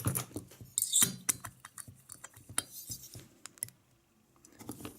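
Small metal tools and parts clicking and clinking against each other while the cooling head of a small two-stroke nitro model engine is being unscrewed. The clicks are sharp and irregular, densest in the first half, with a brief lull near the end.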